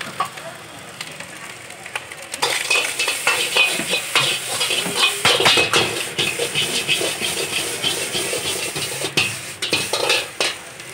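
Metal ladle scraping and clanking against a wok as fried rice is stir-fried and sizzles over a gas flame, growing louder and busier about two seconds in.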